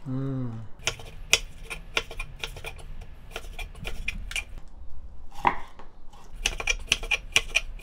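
Kitchen knife slicing raw skate on a wooden cutting board: irregular quick knocks of the blade on the board, in a thick run about a second in and again near the end.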